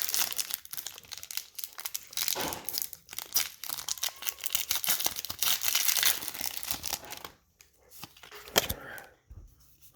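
Foil booster-pack wrapper of a Pokémon trading card pack crinkling and tearing open, a dense crackling for about seven seconds, then quieter handling with one sharp crackle near the end.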